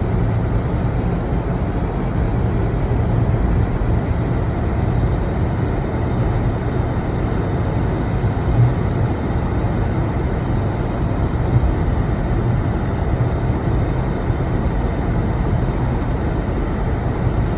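Mercedes-Benz car heard from inside the cabin while driving: a steady low engine and road rumble.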